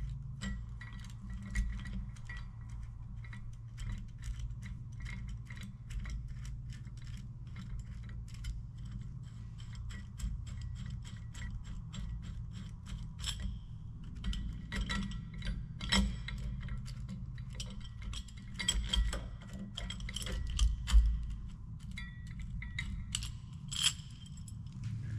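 Quick small metal clicks and clinks as a bolt-on tool is unthreaded and lifted off a tractor PTO housing, with a few louder knocks in the second half, over a steady low hum.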